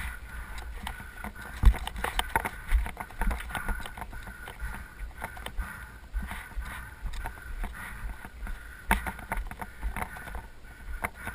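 Mountain bike ride noise picked up by a helmet camera: wind buffeting the microphone and the bike rattling and clattering over a rocky dirt trail, with sharp knocks from bumps, the loudest about two seconds in and another near nine seconds.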